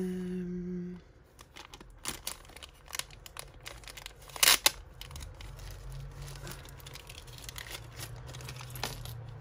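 Plastic packaging crinkling and tearing as small jewellery items are handled, in scattered crackles with two sharp, loud ones about halfway through. A brief low hum opens it.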